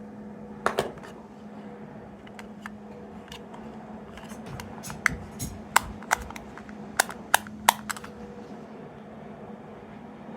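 Sharp plastic clicks and taps from small capsule toys being handled, scattered irregularly and bunched together in the middle, over a faint steady hum.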